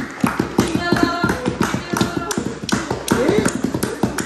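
Wooden Jenga blocks clicking and clacking against each other and the wooden tray as hands gather and stack them, in a quick, irregular run of taps.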